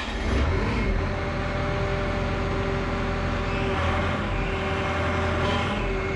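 Bobcat E42 mini excavator's diesel engine running steadily, on its first run after the swivel-joint seal repair, with a constant low hum and a steady tone over it.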